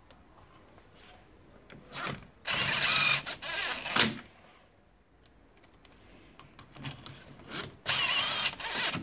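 DeWalt 18V cordless impact driver driving two handle-plate screws home, in two runs: the first about two and a half seconds in, lasting about a second and a half, the second near the end, lasting about a second.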